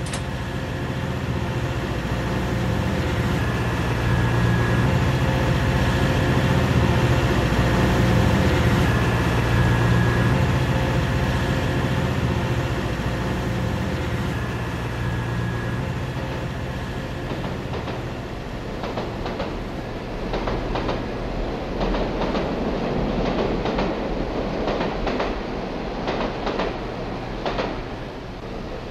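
Train running with electric traction: a steady low hum and rumble, then, in the latter part, rhythmic clickety-clack of wheels over rail joints.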